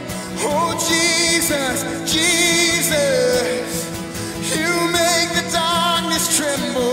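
A man singing a slow worship song, accompanied by a strummed acoustic guitar.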